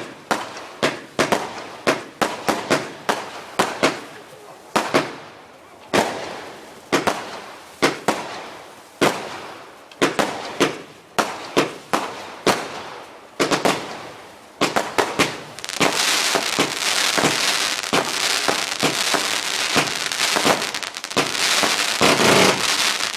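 A 200-shot firework barrage cake firing a rapid series of sharp bangs, several a second. About two-thirds of the way through, the shots run together into a dense, continuous crackle for the finale.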